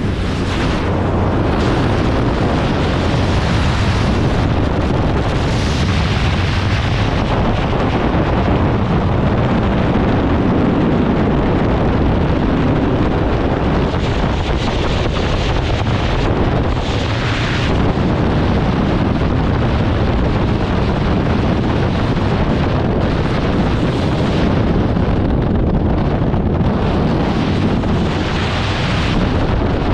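Freefall wind rushing hard over the camera's microphone, a loud steady roar with brief brighter hissy gusts a few times.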